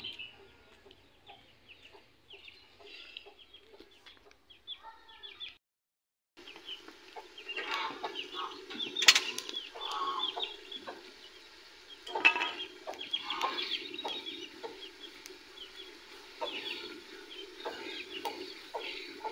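Chickens clucking repeatedly, with a sharp knock about nine seconds in.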